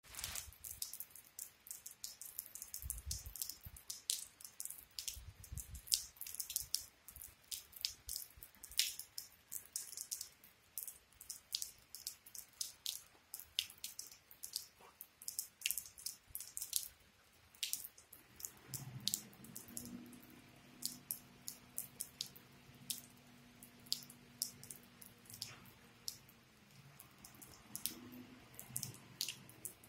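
Rainwater dripping close by in sharp, irregular drips, thickest in the first half. From about two-thirds of the way in, a truck's diesel engine idles steadily underneath.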